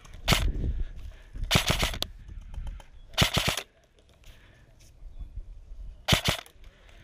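Krytac SPR Mk2 airsoft electric rifle firing four short bursts of rapid shots, the last after a pause of a couple of seconds.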